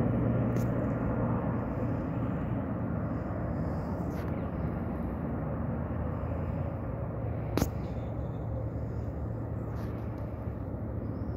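Airbus A320 jet engines rumbling on final approach, the sound slowly fading. A sharp click about seven and a half seconds in.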